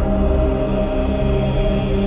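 Background music: a slow ambient drone of sustained, steady tones.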